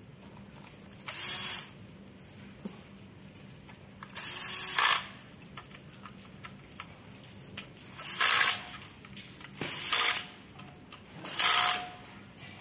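Cordless drill-driver run in five short bursts of about half a second to a second each, with pauses of a few seconds between them.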